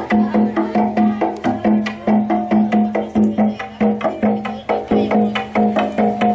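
Gejog lesung: long wooden pestles striking a wooden rice-pounding trough, played as music in a fast, steady rhythm, each knock ringing with a hollow wooden tone.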